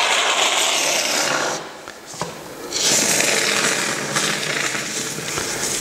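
Can of two-component (2K) polyurethane expanding foam hissing as it is sprayed through its straw nozzle into the gap behind a door frame. The spray comes in two spells with a short break after about a second and a half, as the last of the can is used up.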